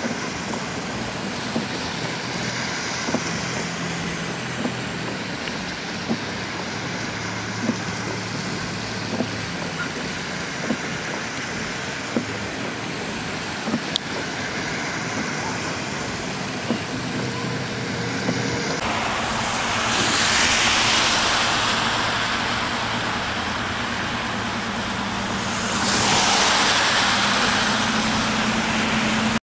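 Vehicles driving slowly through floodwater in heavy rain, with a steady rain hiss, a low engine hum and occasional ticks. Later, trucks push through deep water, and the rushing splash of their wakes swells loudly twice.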